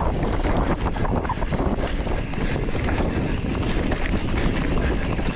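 Wind rushing over the microphone of a moving mountain biker, with a steady low rumble of knobby tyres rolling over a dirt trail. Scattered small clicks and rattles come from the hardtail bike as it jolts over bumps.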